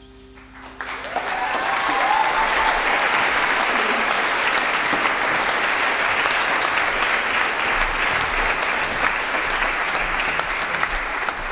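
Audience applause breaking out about a second in, just after the jazz big band's final chord dies away, then clapping steadily at the end of the piece.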